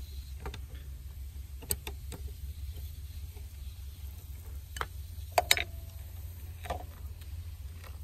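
Scattered clicks and taps of pliers and a wire's metal ring terminal being handled while a ground wire is fastened to the engine, with the loudest pair of clicks about five and a half seconds in. A steady low rumble runs underneath.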